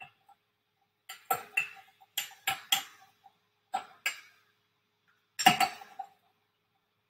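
Metal measuring spoon stirring sugar water in a glass measuring cup, clinking against the glass in four short bursts with a brief ring, quiet in between.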